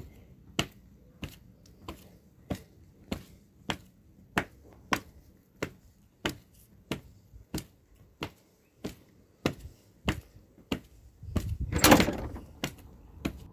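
Footsteps of shoes on block paving at a steady walking pace, about one step every 0.6 seconds, stopping about ten and a half seconds in. Near the end a louder, rougher burst of sound with a low rumble lasts about a second and a half.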